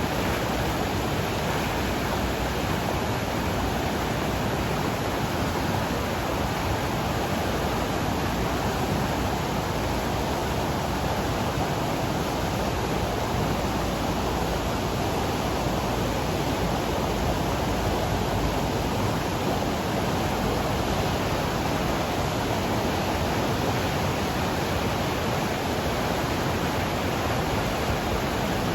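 A rushing mountain river in flood, swollen with runoff: a steady, dense roar of fast-flowing water.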